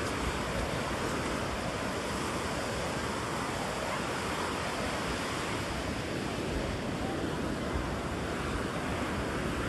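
Ocean surf washing onto a sandy beach, a steady, even rush of small breaking waves with no distinct crashes.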